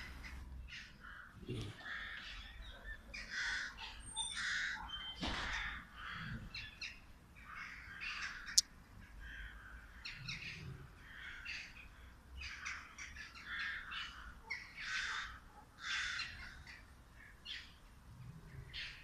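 Crows cawing over and over in short harsh calls, with a few faint low grunts underneath and one sharp click a little past halfway.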